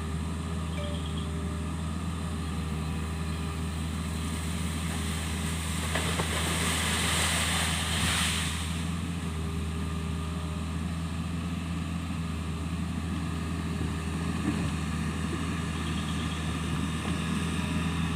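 Kobelco SK 50 P mini excavator's diesel engine running steadily, with a rising and fading hissing rush from about six to nine seconds in.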